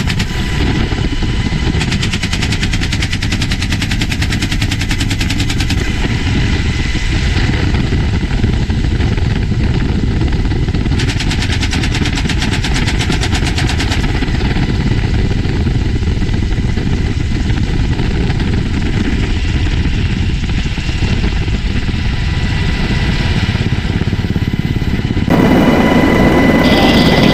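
Door-mounted machine gun on an HH-60G Pave Hawk helicopter firing two long bursts of rapid automatic fire, about two seconds in and again about eleven seconds in, over the helicopter's steady engine and rotor noise. The sound changes abruptly near the end.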